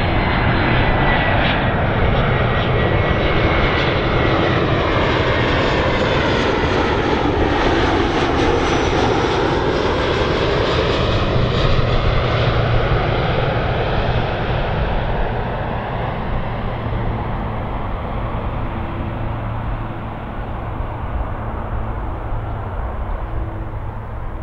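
Jet airliner passing by on its landing approach. The engine noise swells to a peak about eight seconds in and then slowly fades away. A thin high whine slides slightly lower in the first few seconds.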